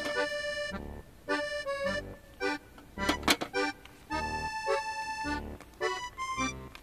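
Background music: a melody of short held notes over a low beat that falls about once a second.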